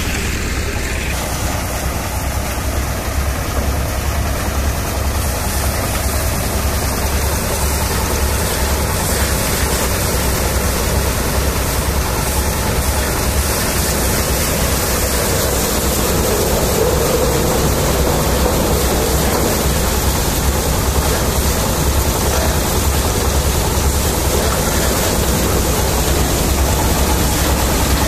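Threshing machine driven by a single-cylinder diesel engine, running steadily while lentil plants are fed through it and threshed, with a constant low engine rumble under the rushing of the threshing drum.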